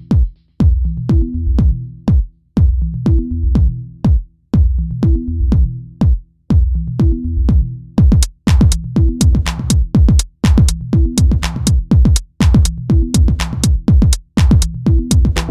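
Electronic dance music with a drum-machine beat over a repeating bass line; about halfway through the drum hits come faster.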